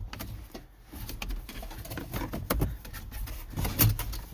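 Irregular small clicks, taps and rattles of plastic dashboard parts and a vent control cable being handled and pulled out, several a second.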